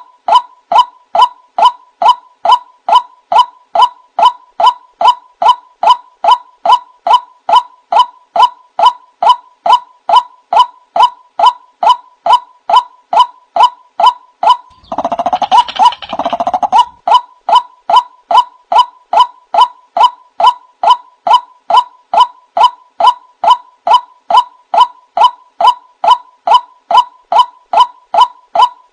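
White-breasted waterhen calls played as a lure recording: a monotonous series of nasal 'wak' notes, about two a second, evenly spaced. About halfway through, a coarser two-part call briefly breaks the series before the steady notes resume.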